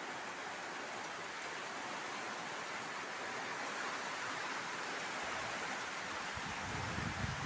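Steady rain falling, an even hiss throughout. Near the end a low rumble rises underneath it.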